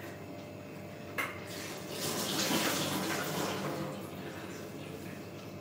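Water running briefly, as from a tap: a click about a second in, then a rush of water that swells and fades over about two seconds.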